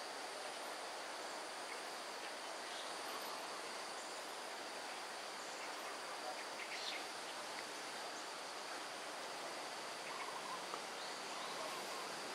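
Tropical forest ambience: a steady high-pitched insect drone over an even hiss, with a few faint brief chirps around the middle.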